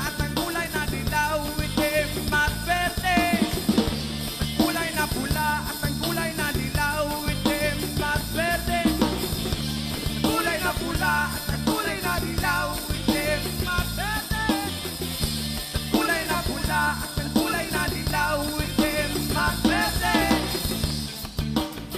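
Background music: a song with a singing voice over a band with drums.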